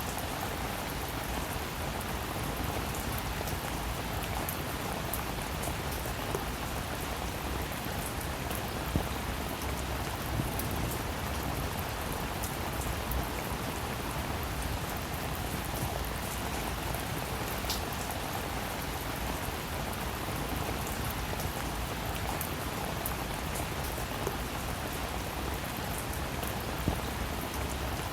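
Steady rain falling, with single drops ticking sharply now and then over the even hiss.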